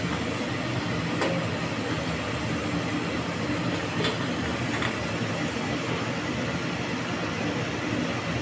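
Hot oil sizzling steadily in a steel kadai as deep-fried yam fries are lifted out with a perforated steel skimmer, over a low steady hum. There are a few faint clinks of the skimmer against metal.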